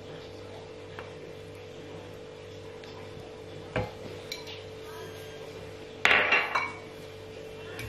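Wooden spoon knocking and scraping against an enamelled cast-iron skillet as it pushes butter around. There is one sharp knock just under four seconds in, and a louder quick run of clattering knocks at about six seconds, over a steady hum.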